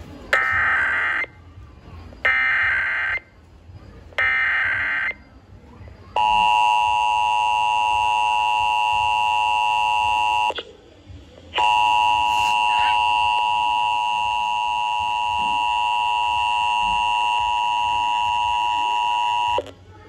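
Emergency Alert System test on AM radio, heard through a Midland weather radio's small speaker: three short, harsh data bursts of the SAME header, about a second each and a second apart, then the steady two-tone attention signal. The attention tone is broken by a gap of about a second partway through and stops just before the end.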